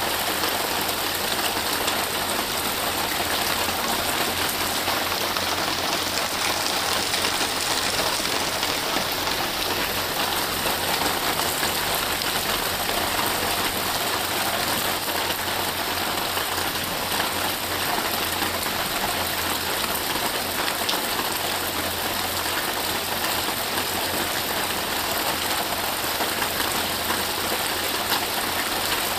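Steady rain falling, an even hiss of rain without breaks.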